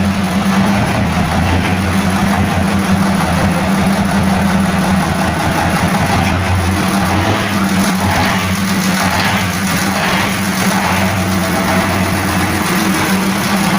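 Alfa Romeo FNM D-11000 truck's six-cylinder diesel engine idling steadily, freshly rebuilt.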